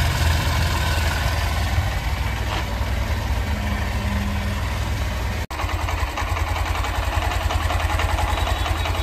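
Honda SP 125's single-cylinder engine idling steadily with a tick-tick noise, which the owner suspects comes from the tappets (valve clearance). The sound drops out for an instant just past halfway.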